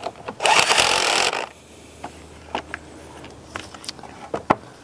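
A cordless ratchet runs for about a second, spinning down the nut on a car battery's positive terminal clamp. A few light clicks and taps of metal and plastic handling follow.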